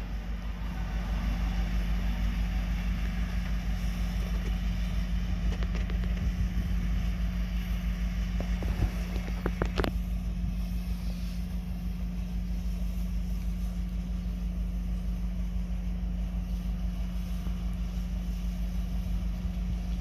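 Steady low diesel rumble from a slow-moving freight locomotive, with a couple of sharp clicks about halfway through.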